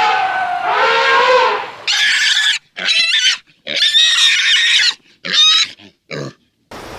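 A pig squealing in five short, shrill bursts with pauses between them. In the first two seconds the tail of another animal's call falls away in pitch before the squeals begin.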